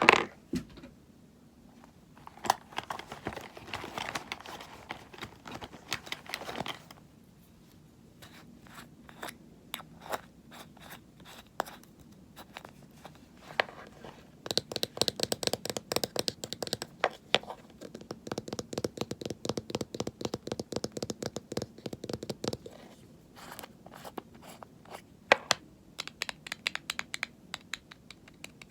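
ASMR handling of cosmetics close to the microphone: quick taps and scratching on their packaging, coming in a dense, even run of rapid taps through the middle of the stretch.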